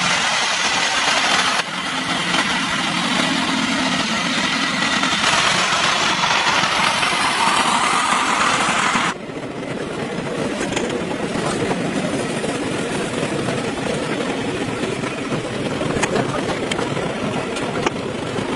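A motor vehicle engine running, with sudden changes in the sound about one and a half and nine seconds in, as at cuts between shots; after the second change it is duller and lower.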